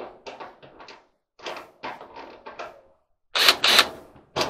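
Cordless drill driving a screw into a clothes dryer's sheet-metal cabinet in short, clicking, rattling bursts. The last two bursts, near the end, are the loudest. The screw is stiff and does not want to turn.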